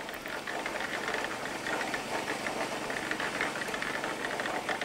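Portable concrete mixer running steadily, driven by the small engine on its frame.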